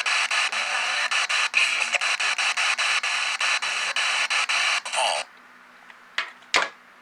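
Weather radio receiver hiss and static, broken by brief dropouts about four times a second, cutting off suddenly about five seconds in. Then two short clicks near the end, the second louder.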